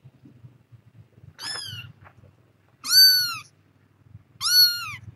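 Kitten mewing three times, high-pitched calls each lasting under a second that rise and then fall in pitch; the last two are the loudest.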